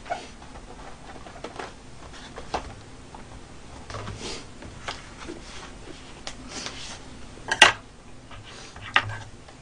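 Wooden chopsticks and plastic lunch-box trays being handled at a table: scattered light clicks and rustles, with a sharper plastic clack about seven and a half seconds in and another near the end.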